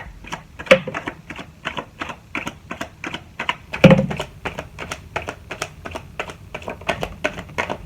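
A deck of tarot cards being shuffled by hand: a steady run of quick card slaps, about four a second, with two louder knocks, about a second in and about four seconds in.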